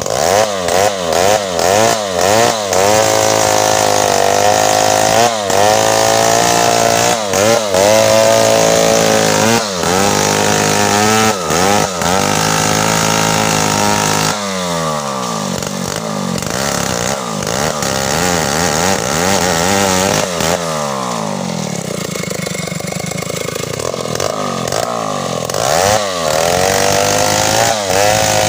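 Stihl two-stroke chainsaw cutting a felled tree trunk. The engine revs up and down repeatedly for the first half, drops in pitch about halfway as the chain bites into the wood and runs lower and steadier under load, then revs up and down again near the end.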